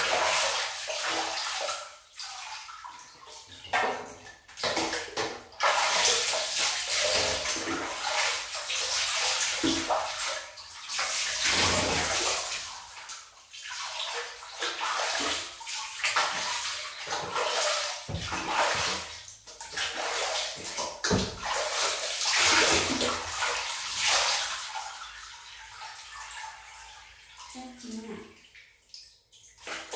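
Bathwater in a tub being scooped and splashed over a wet dog by hand, in uneven surges of splashing and pouring.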